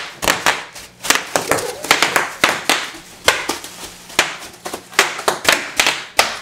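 Bubble wrap being popped: a quick, irregular run of sharp pops, about three or four a second.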